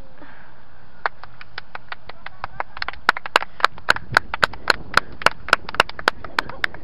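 A rapid, even series of sharp clicks or taps, about four a second, starting faint about a second in, louder from about three seconds in, and stopping just before the end.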